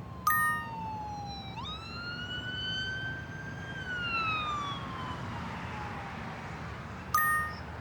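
Police siren wailing through one slow cycle: its pitch dips, climbs quickly, holds, then falls away. Two short, loud electronic blips cut in, one just after the start and one near the end.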